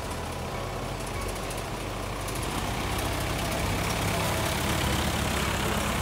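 A motor vehicle on the road, its engine and tyre noise growing louder over the second half.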